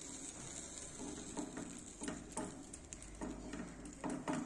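Silicone pastry brush dabbing and stroking butter onto a slice of bread in a frying pan: soft, irregular pats and light taps, the loudest near the end, over a faint steady hiss.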